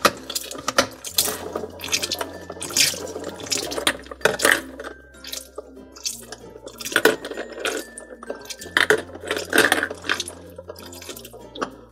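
Water trickling from a toy kitchen sink's faucet over plastic play fruit in a plastic colander, with repeated sharp clicks and knocks as the fruit is turned and rubbed by hand.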